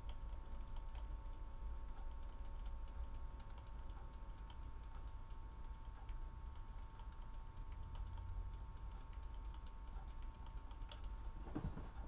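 Faint, irregular computer keyboard typing over a steady hum, with a soft low thump near the end.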